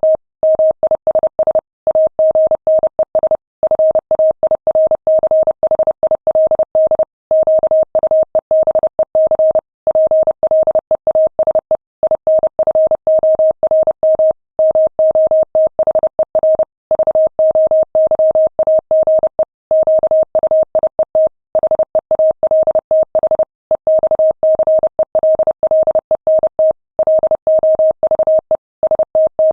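Morse code at 30 words per minute: a single steady beep near 600 Hz keyed on and off in quick dots and dashes, with short pauses between characters and words.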